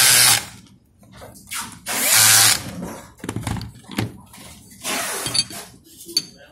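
Cordless drill driving a hex bit in two short runs about two seconds apart, tightening the set screw of a brass shaft coupling on a gear motor. A few light knocks and clatter follow as the metal parts are handled on the bench.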